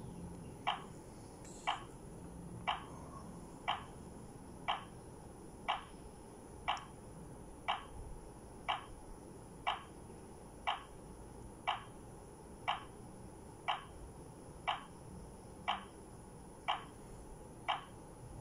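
Daytech wireless alarm control panel ticking like a clock, one short tick a second, as it counts down the exit delay after being armed while it detects its sensors.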